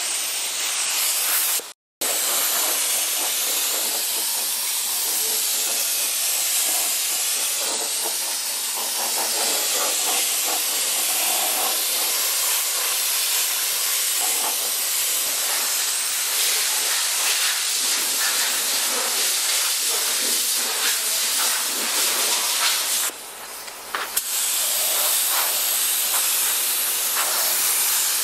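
Compressed-air gravity-feed spray gun hissing steadily as it sprays a coat of paint onto car body panels. The hiss stops twice, once for a moment about two seconds in and again for about a second near the end.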